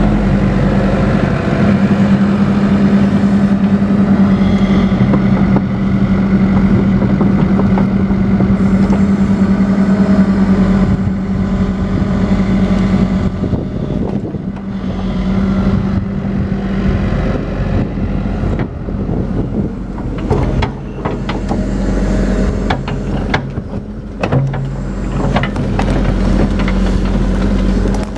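Tracked excavator's diesel engine running steadily while digging, its tone shifting now and then. Over the second half come many short knocks and clatters as the bucket works mud and sticks out of a beaver dam.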